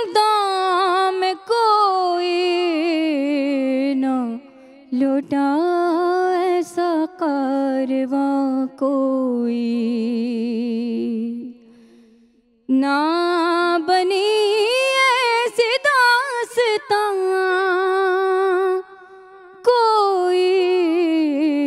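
A woman singing an Urdu noha, a mourning lament, unaccompanied into a microphone: long held notes with a slow waver and gliding ornaments, broken by a few brief pauses between phrases.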